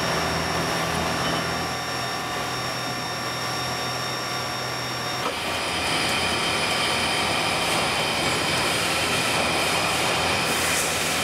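CNC lathe cutting a metal workpiece: steady machine noise with several whining tones. About five seconds in, after a slight click, the sound changes to a brighter, higher cutting whine.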